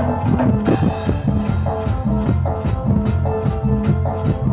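A live band plays an instrumental passage: an electronic keyboard melody over a drum kit and a steady bass line, with a cymbal crash a little under a second in.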